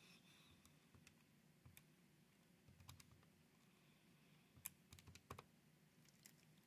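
Faint, irregular clicks of calculator keys being pressed on a TI-36X Pro scientific calculator, working out a number. A quick run of presses comes about two-thirds of the way through.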